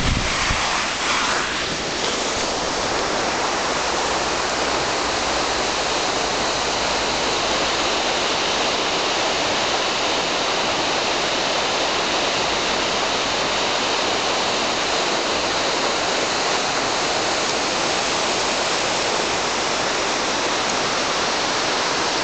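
Mountain stream rushing over rocks in whitewater: a steady, even roar of water. Wind buffets the microphone briefly at the start.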